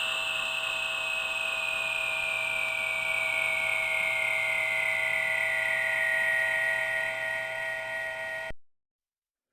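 Synthesized science-fiction sound effect: an electronic drone of several held tones, the strongest one sliding slowly down in pitch, that cuts off suddenly near the end.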